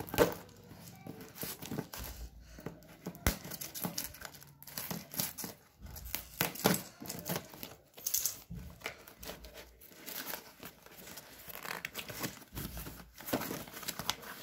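Smartphone box packaging being torn open and crinkled by hand, plastic wrap and cardboard rustling in irregular bursts with sharp clicks.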